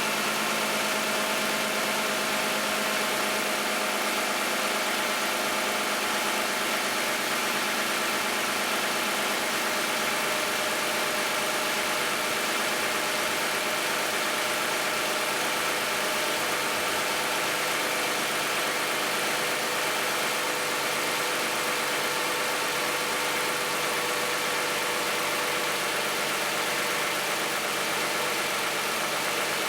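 2010 Toyota Camry's 3.5-litre 2GR-FE V6 idling steadily, still warming up after a cold start, on 0W-20 oil instead of its specified 5W-30. Its pitch settles slightly lower over the stretch.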